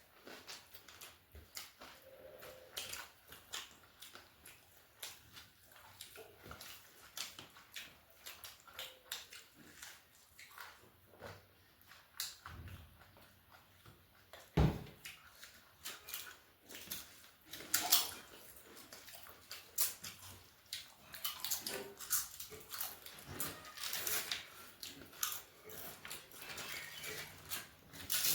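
A person eating close to the microphone: chewing, wet mouth sounds and sharp crunching bites, with two louder crunches about halfway through.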